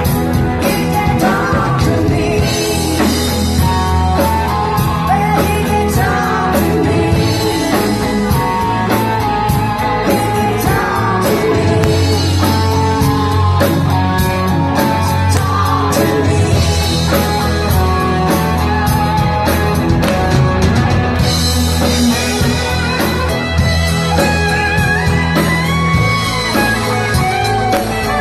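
Live rock band playing, with a lead vocalist singing over guitar, bass and drums.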